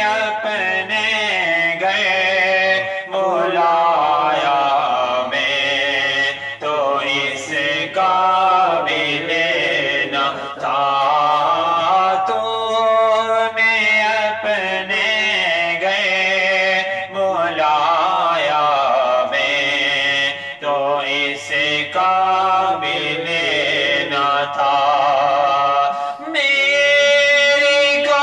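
A man singing an Urdu naat unaccompanied, in slow, drawn-out phrases that bend up and down in pitch, with short breaks between them.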